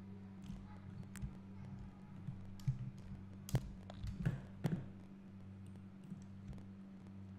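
A handful of sharp computer mouse and keyboard clicks, clustered in the middle, over a steady low electrical hum.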